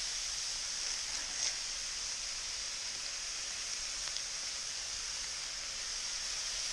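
Pheasant meat, onions and celery frying in a pot with butter just added: a steady sizzle, with a faint tick or two.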